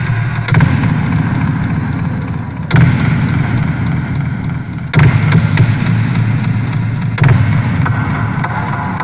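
Live electronic music: a heavy, booming low-end drone with sustained higher tones, punctuated by hard, explosive hits about every two and a quarter seconds.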